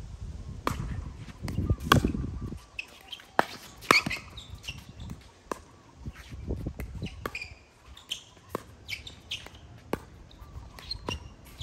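Sharp pops of a pickleball rally, paddles and court striking the plastic ball roughly once a second, with birds chirping in the background.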